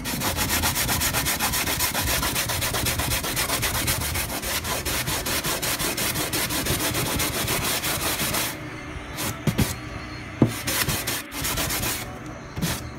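A 120-grit sanding block rubbed quickly back and forth over a styrofoam cooler, sanding paper labels off the foam in rapid, even strokes. About eight seconds in the strokes stop, leaving a few sharp knocks, then they start again briefly near the end.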